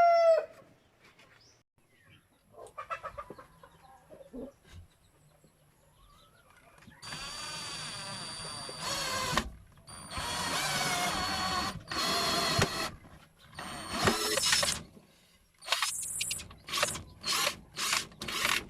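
Power drill running in three runs of a few seconds each, then a quick string of short trigger bursts near the end. A rooster's crow trails off right at the start.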